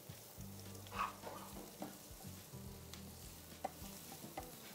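Wooden spatula stirring sliced onions, chillies, coconut and curry leaves frying in a pan, with a faint sizzle of the oil. Scattered light knocks and scrapes of the spatula against the pan, the strongest about a second in.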